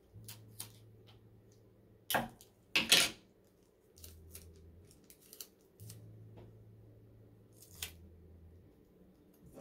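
Clear sticky tape pulled off its roll and torn, with two loud rasps about two and three seconds in and a shorter one near the end, between small handling clicks. A low hum comes and goes underneath.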